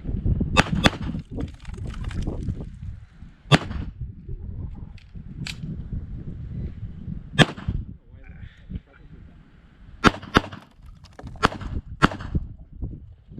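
Pistol shots fired during a timed stage, about nine of them at irregular spacing, with two quick pairs: one near the start and one about two-thirds of the way in.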